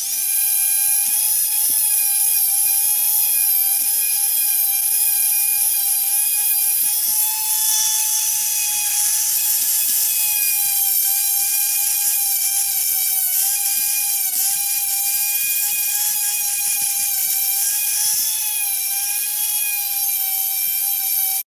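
Dremel rotary tool running at high speed with a brush attachment, polishing a die-cast metal toy jet. It makes a steady high whine that dips slightly in pitch now and then as the brush bears on the metal.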